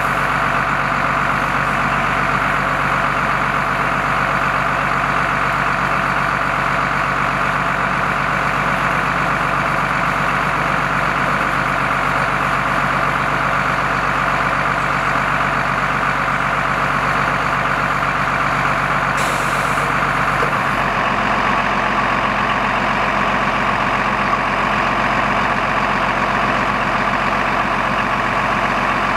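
A fire engine's engine runs steadily at the pump under the even hiss of a hose spraying water onto a burning car. The mix of the sound shifts about two-thirds of the way through.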